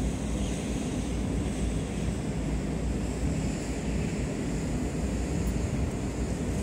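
Steady wind rumbling on the microphone, an even noise with no distinct events.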